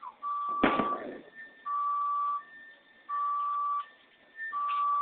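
Car alarm sounding: a steady beep about three-quarters of a second long, on and off about every second and a half, alternating with a fainter higher tone. About half a second in, a single deep boom of an explosion is the loudest sound.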